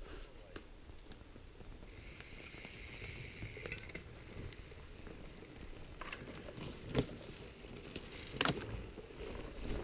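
Mountain bikes rolling over rock and trail, with tyre noise and light rattling under a steady hiss, and two sharp knocks near the end.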